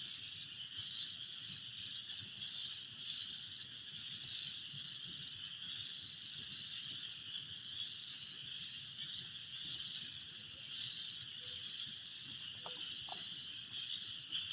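A dense chorus of many frogs calling at once, blending into a steady, high-pitched din with no letup.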